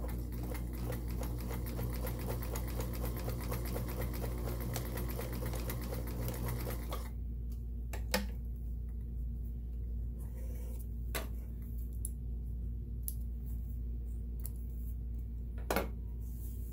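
Sears Kenmore 1802 sewing machine running at a steady speed and sewing a stretch zigzag stitch, a fast even chatter of needle strokes that stops about seven seconds in. A few separate sharp clicks follow, with a steady low hum underneath.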